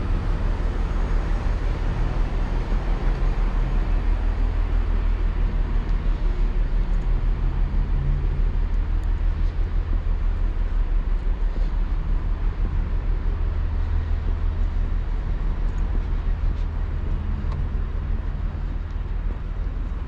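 Class 68 diesel locomotive idling with its train standing at the platform: a steady low rumble that eases slightly near the end.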